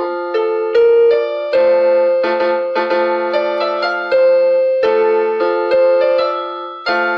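Electronic keyboard in an electric-piano sound playing a slow melody over held chords, a new note about every half second.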